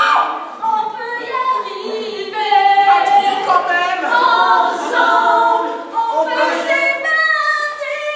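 Several voices singing together unaccompanied, drawn-out notes that slide and change every second or so.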